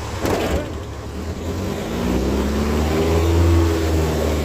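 Van's RV-4 light aircraft's piston engine and propeller, heard from inside the cockpit, revving up: the engine note rises about two seconds in and gets louder.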